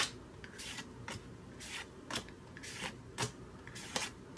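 Disney Lorcana trading cards being flipped through one at a time, each card sliding off the stack with a soft swipe or snap, about two a second.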